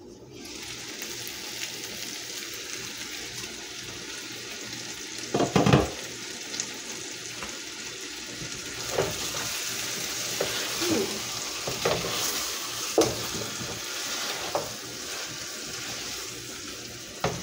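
Chicken drumsticks sizzling in a pot, the hiss starting as the lid comes off. A loud clatter about five seconds in, then a spatula knocking and scraping against the pan every second or so as the drumsticks are stirred.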